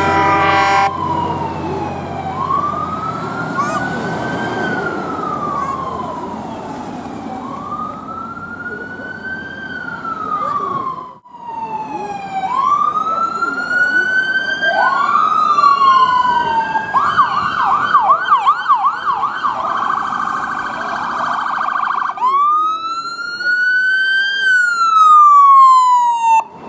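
American-style electronic police sirens sounding a slow wail that rises and falls every few seconds, with a second siren overlapping in the second half. A fast yelp runs for several seconds just after the middle. A short horn blast sounds at the very start.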